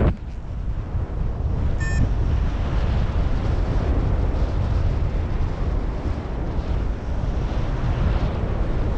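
Airflow buffeting the microphone of a paraglider in flight: a steady rushing rumble, heaviest in the low end. A short electronic beep sounds once about two seconds in.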